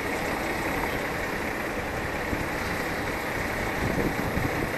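A semi truck's diesel engine running steadily at idle, a continuous low rumble.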